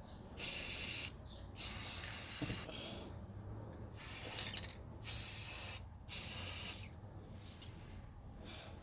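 Aerosol spray paint can spraying a second coat onto a brake caliper in five short bursts, each a half-second to a second long, the last near seven seconds in.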